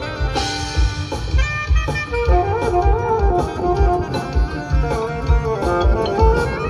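High school marching band playing its field show: brass holding and moving through sustained chords and a melody over a steady low drum beat.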